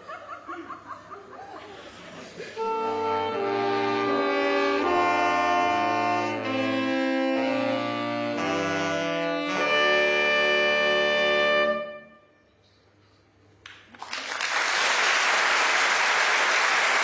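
A saxophone ensemble plays a series of sustained chords in harmony for about nine seconds and cuts off together. After a short silence, an audience breaks into applause.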